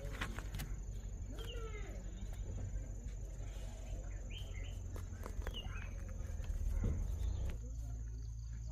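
Rural outdoor ambience: a steady high insect drone with a few short bird calls scattered through, over a low rumble that eases near the end.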